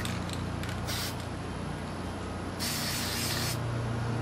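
Aerosol spray-paint can spraying in short hissing bursts: a brief one about a second in, then a longer one lasting about a second past the middle, as paint is dusted over a leaf stencil onto the gun.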